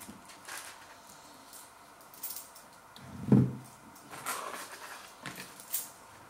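Handling noises at a table: scattered rustles and light knocks of a cardboard food sleeve and a bowl being moved, with one heavier thump about three seconds in.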